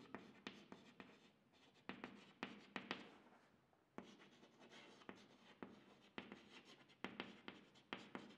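Chalk writing on a chalkboard: faint, irregular taps and scratches of the chalk strokes as a word is written out.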